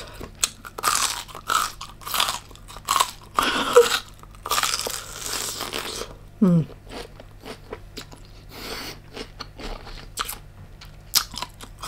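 Close-miked eating: repeated crunchy bites and wet chewing, busiest in the first half, with a brief falling vocal sound from the eater about six and a half seconds in.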